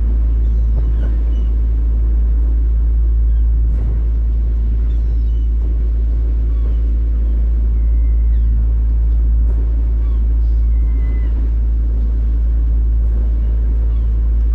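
Boat engine running steadily, a constant low rumble, with faint short cries of gulls now and then above it.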